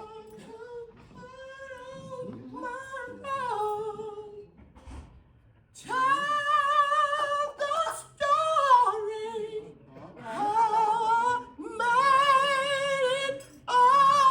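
A woman singing a gospel song unaccompanied, holding long notes with vibrato; she sings softly at first and then much louder from about six seconds in.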